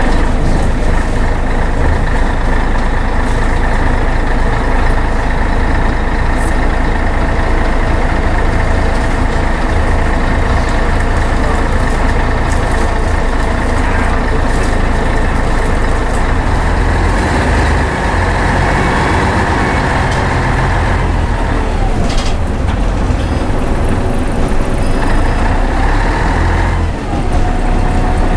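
Scania N113CRB bus's 11-litre six-cylinder diesel and Voith automatic gearbox working under way, heard from inside the saloon: a heavy, steady engine drone with a high whine over it. The whine falls in pitch twice in the second half.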